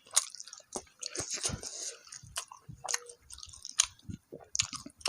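A person chewing and biting a mouthful of food, with irregular mouth clicks and smacks.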